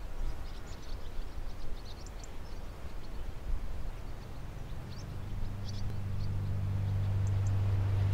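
Faint birds chirping over a soft outdoor hiss. From about halfway a low, steady hum fades in and grows louder.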